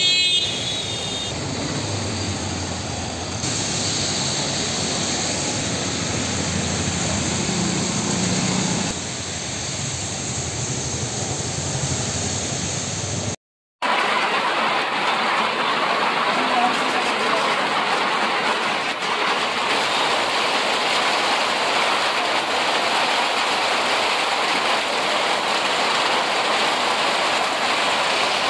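Steady hiss of heavy rain on a street, with motor vehicles running and passing in the first half. The sound cuts out for a moment about halfway, then the rain hiss comes back louder and even.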